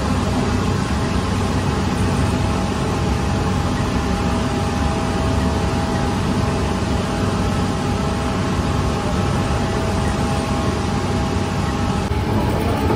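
Steady drone of bakery machinery: a continuous low hum and rushing noise with a faint steady whine over it.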